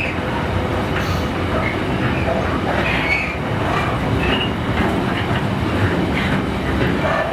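Freight train of container flat wagons rolling past: a steady rumble and clatter of steel wheels on the rails, with short high-pitched wheel squeals now and then.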